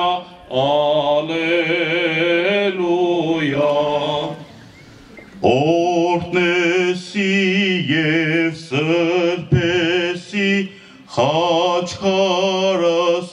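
A male voice chanting an Armenian church hymn unaccompanied, in long drawn-out notes with a wavering vibrato, pausing for about a second some four seconds in. It is the chant of the rite consecrating a khachkar (cross-stone).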